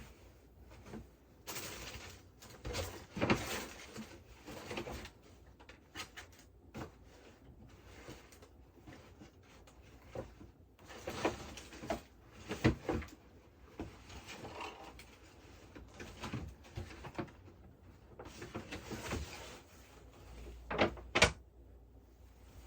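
Irregular desk-handling sounds: bursts of rustling and scraping broken by a few sharp knocks, with short quiet gaps between them.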